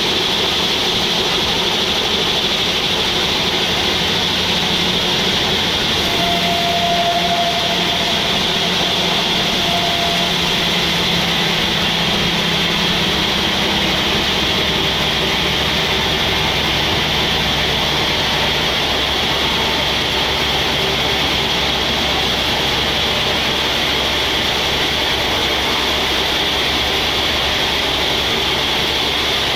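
Sawmill machinery running steadily: the saw and its drive make an unbroken mechanical noise with a constant high whine.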